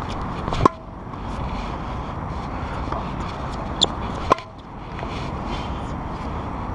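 Tennis ball struck by a racket: two sharp pops, one about half a second in and one a little past four seconds, each with a brief ring, with a shorter, higher click just before the second. A steady low rumble runs under them.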